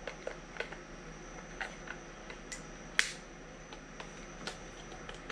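Scattered small, sharp clicks and taps of hands handling a small plastic RC crawler truck, with one louder click about three seconds in.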